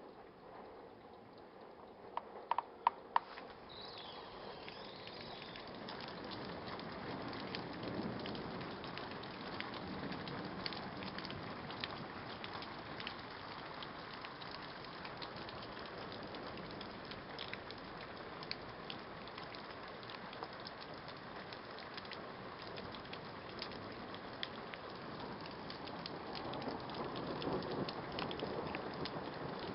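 Steady rain pattering, building up over the first few seconds and then holding, with a few sharp knocks about two to three seconds in and low swells of rumble around eight seconds in and again near the end.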